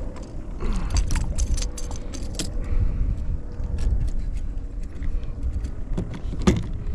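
Wind rumbling on the microphone, with scattered small clicks and light rattles of gear being handled.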